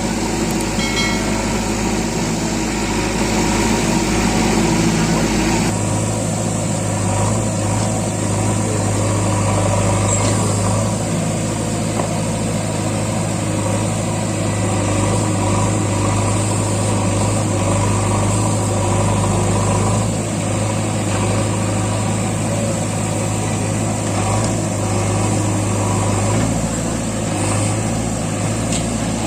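Diesel engine of a JCB 3DX backhoe loader running steadily with a low drone. The sound changes abruptly about six seconds in.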